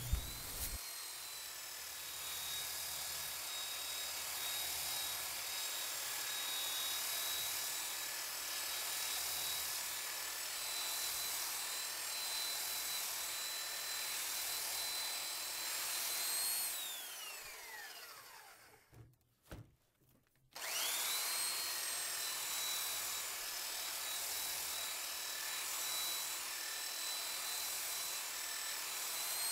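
Porter-Cable belt sander sanding a rough-sawn oak beam: a steady high motor whine over the hiss of the belt on the wood. It starts up at the beginning, winds down and stops a little past halfway, is silent for a few seconds, then starts up again and runs on.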